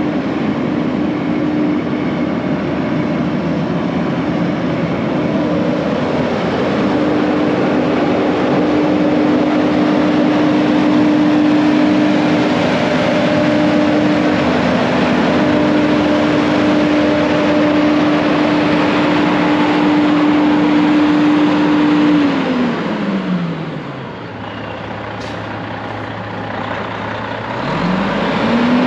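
Diesel engine of a 2001 Freightliner semi truck running at a steady speed under way. About 22 seconds in the engine note falls as it drops back toward idle, and it revs up again near the end.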